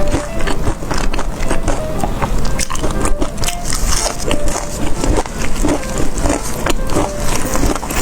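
Close-miked biting and chewing of crunchy food, a dense run of crisp crunches and clicks.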